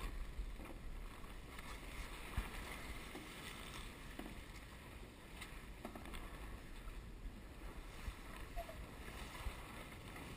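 Water rushing and splashing along the hull of a Star keelboat under sail, with wind rumbling on the microphone. A few small knocks from the boat's fittings, the sharpest about two seconds in.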